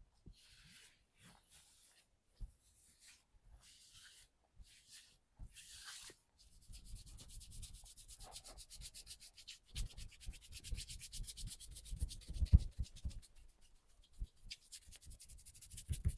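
Hands rubbing over skin in a massage: slow, separate strokes at first, then from about six seconds a fast, even rubbing rhythm, with dull thumps mixed in for a few seconds near the middle of that run.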